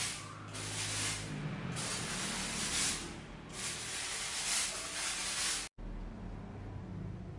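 Repeated bursts of spraying hiss, each one to two seconds long with short gaps between them, over a steady low hum. The hiss cuts off abruptly about six seconds in, leaving only the hum.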